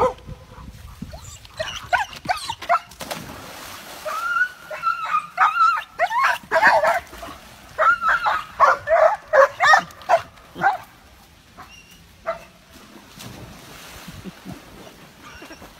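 Dogs whining and yipping in many short, high calls that rise and fall in pitch, thickest in the middle and trailing off near the end.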